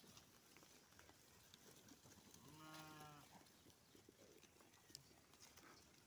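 A single faint bleat from the grazing flock of sheep and goats, about halfway through, steady in pitch and lasting under a second, over quiet outdoor background.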